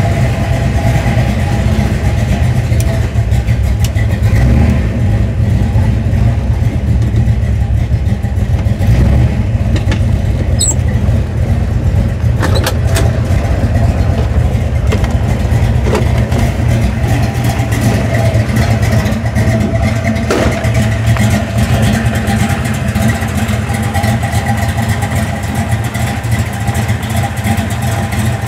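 1967 Mustang's 306 Blueprint crate small-block V8, breathing through Tri-Y headers, an X-pipe and Flowmaster 40 series mufflers, running at a steady idle while it warms up after a cold start. It is heard mostly from inside the cabin.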